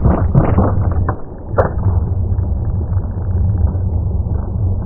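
Angle grinder's thick cutting disc breaking up, as a low, steady rumble with several knocks in the first second and a sharp crack about one and a half seconds in.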